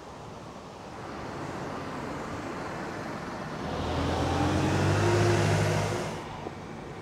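Street traffic with a motor vehicle passing close by: an engine hum and tyre noise build up, are loudest about four to six seconds in, then drop off sharply.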